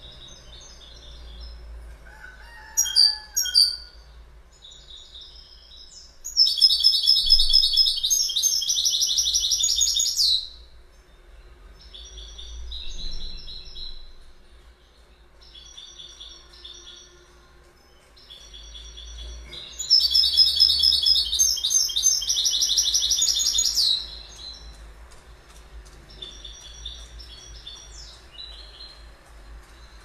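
European goldfinch singing: a run of twittering phrases, with two loud bursts of rapid trilling, one starting about six seconds in and another about twenty seconds in, each lasting about four seconds.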